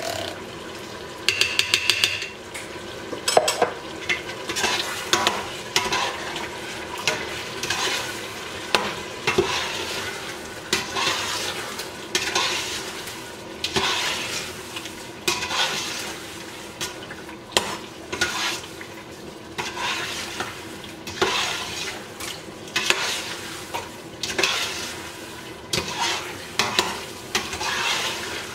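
Metal spoon stirring and scraping lamb frying with tomato paste and spices in a stainless steel pot, over a steady sizzle, in repeated strokes about once a second. About two seconds in, a brief ringing metal scrape.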